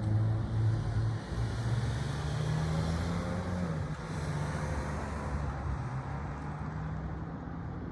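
A vehicle engine running steadily with a low hum; its pitch rises a little and then drops back about four seconds in.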